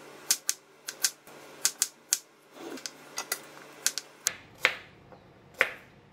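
Kitchen knife chopping fresh ginger on a plastic cutting board: about a dozen sharp, irregularly spaced knocks of the blade against the board.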